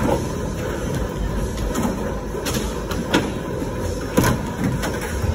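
Skateboard wheels rolling on a concrete floor with a low rumble, and sharp clacks of the board striking the box, the loudest about three and four seconds in.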